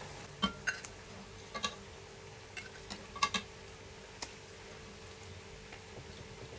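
Floured sardines deep-frying in a pot of hot oil: a soft, steady sizzle with scattered sharp pops and clicks, most of them in the first four seconds, over a faint steady hum.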